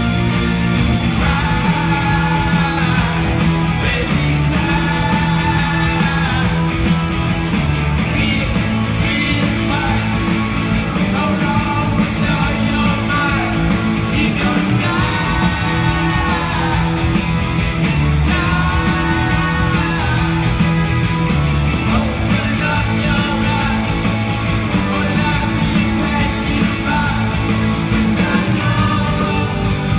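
Live rock band playing loudly: electric guitars, bass and drums with a lead singer's sung phrases recurring about every two seconds over a steady beat.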